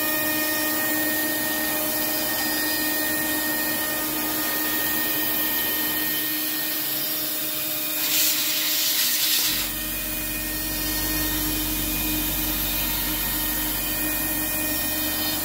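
Spindle of a home-built PrintNC CNC router running with a steady whine while a 6 mm two-flute cutter makes a roughing pass through 17 mm construction plywood. About 8 seconds in there is a loud hiss of air for about a second and a half, and a low hum comes in just after it.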